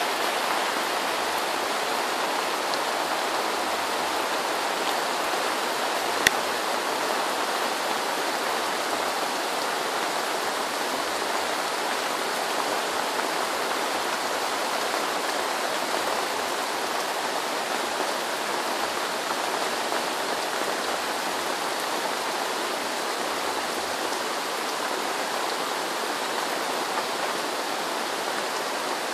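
Heavy downpour: rain falling in a steady, even hiss, heard from under a palm-thatch roof. A single sharp click comes about six seconds in.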